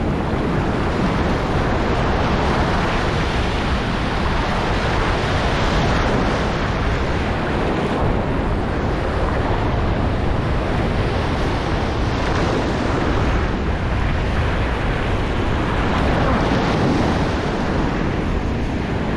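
Ocean surf washing and breaking in the shallows, with wind buffeting the microphone; the wash swells and eases a few times.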